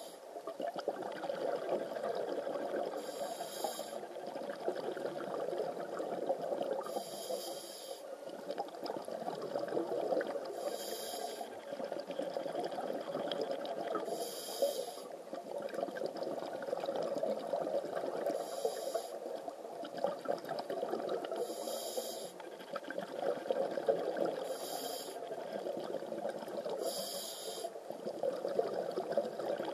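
Scuba diver breathing underwater through a regulator: a short hiss about every three to four seconds over a steady underwater rumble.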